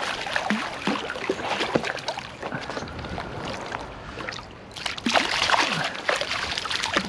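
Hooked brown trout splashing at the surface of a shallow stream as it is played in, with a louder spell of splashing about five seconds in as it goes into the landing net. Running stream water underneath.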